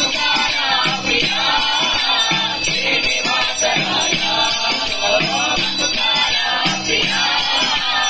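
A devotional song: a voice singing over steady jingling percussion.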